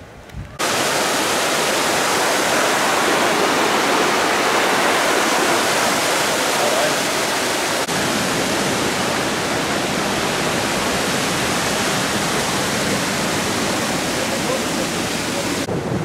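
Waterfall pouring over a rock ledge into a pool: a loud, steady rush of white water that starts abruptly under a second in and falls away just before the end.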